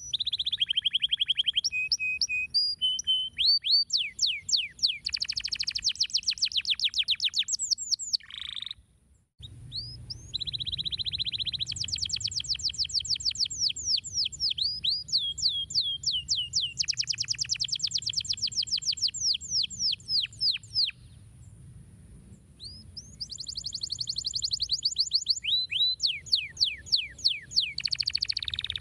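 Domestic canary singing: long rapid trills and rolls of quickly repeated notes, many of them sweeping down in pitch. The song breaks off briefly about nine seconds in and pauses again a little past twenty seconds, with a faint low hum underneath.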